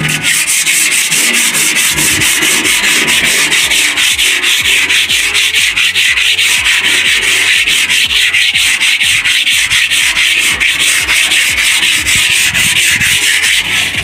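An abrasive sheet rubbed by hand in rapid, steady back-and-forth strokes over the wet, rusty steel panel of a New Holland combine harvester's cutter header, scouring off the rust before the panel is primed and painted.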